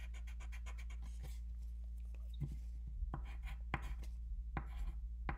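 Pencil writing on paper: a run of short, scratchy strokes, with a few sharper taps of the pencil in the second half, over a faint steady low hum.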